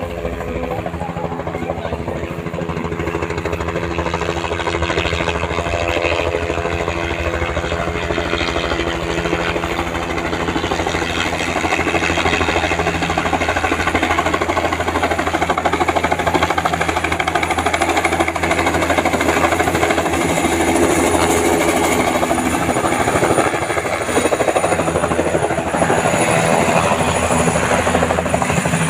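Light helicopter's rapid rotor chop and engine, growing louder as it approaches and descends to land, with a thin high whine becoming clearer about halfway through.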